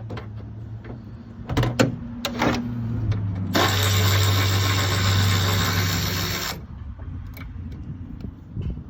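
A few sharp metallic knocks, then a handheld power tool runs steadily for about three seconds and stops abruptly, as work goes on at the alternator mounting in the engine bay.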